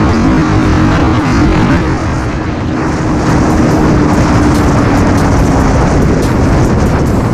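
Yamaha Sniper 150's single-cylinder engine running flat out near top speed, about 130 km/h, under heavy wind rush on the microphone. Its steady note fades about six seconds in as the throttle is eased off.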